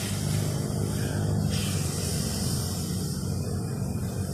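Water jet from a nozzle on a stand, driven by a submersible water pump, spraying in a steady rush, over a steady low hum.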